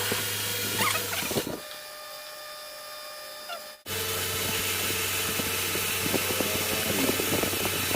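Metal lathe running with a steady hum, with scattered clicks and scraping of metal work. The machine sound drops away about a second and a half in and comes back abruptly near four seconds.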